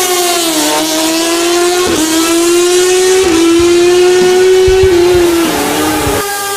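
Motorcycle engine running on the move: a loud, steady drone that sinks, creeps upward and steps up and down in pitch several times as the speed changes, with a hiss of wind and road behind it.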